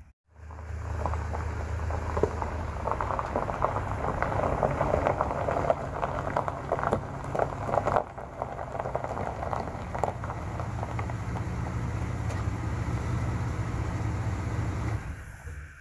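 Vehicle driving slowly along an unpaved forest road: a steady engine hum under dense crackling and popping of stones under the tyres. It starts just after a brief gap and drops away just before the end.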